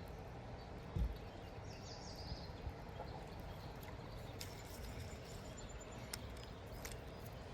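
Outdoor ambience by a river: a steady low rumble with a single knock about a second in, a short bird chirp around two seconds, and a few faint clicks later on.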